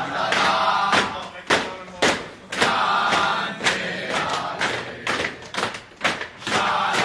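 A group of teenage footballers chanting and shouting together over a rhythmic beat of thuds about twice a second, the voices dropping away in the middle and swelling again near the end.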